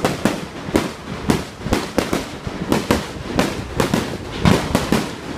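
Fireworks display: aerial shells bursting in a rapid, unbroken series of bangs, about two or three a second.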